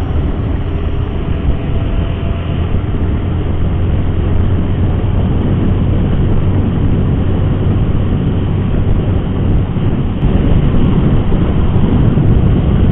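Wind rushing over the microphone with motorcycle engine and road noise, steady while riding.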